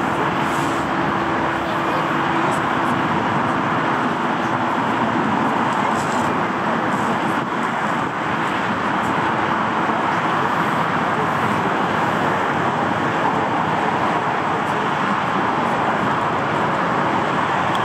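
Steady jet engine noise from a taxiing Boeing 747-8, its four GE GEnx-2B67 turbofans at low taxi thrust. There is a faint steady tone in the first few seconds.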